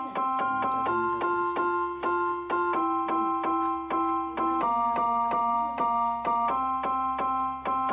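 Background music on a piano-like keyboard: an even run of notes, about four a second, over chords that change every two seconds or so.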